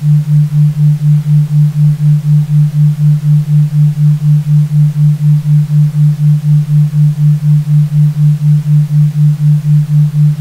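Isochronic tone for brainwave entrainment: a single low, pure tone pulsing on and off evenly about four times a second.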